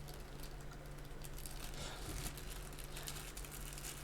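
Faint crinkling and small irregular clicks of plastic packaging being handled as a USB cable is unpacked.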